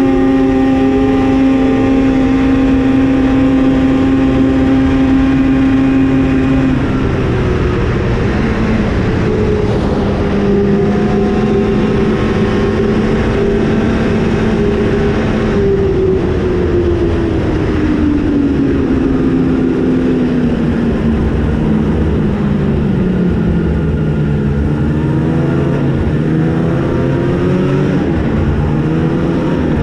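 2021 Arctic Cat ZR 8000 RR snowmobile's two-stroke twin engine running under way: it holds a steady pitch, drops about seven seconds in, falls away gradually through the middle as the throttle eases off, then revs back up near the end.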